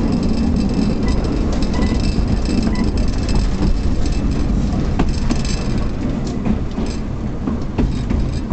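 A 1923 Brill streetcar running along its track, heard from aboard: a steady rumble of wheels and motors. A few sharp clicks in the second half come from the wheels on the rails.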